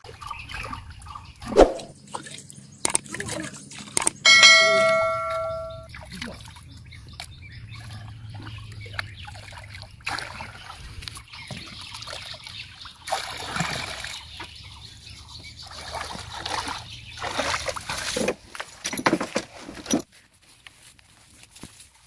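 Pond water sloshing, splashing and gurgling as a green bamboo tube is dipped in and filled, with a knock about a second and a half in. About four seconds in, a loud bell-like ding rings for under two seconds and fades away.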